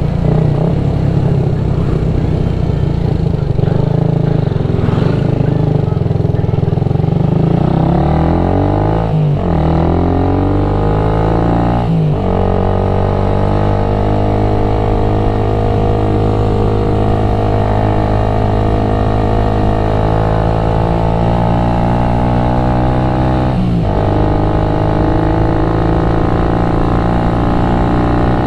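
Motorcycle engine and exhaust under way: the engine pitch dips and picks up again at three gear changes, about a third of the way in, shortly after, and near the end, and holds fairly steady in between.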